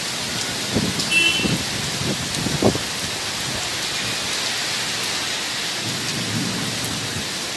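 Steady hiss of heavy rain in a storm, with a few short low rumbles in the first three seconds and again near the end.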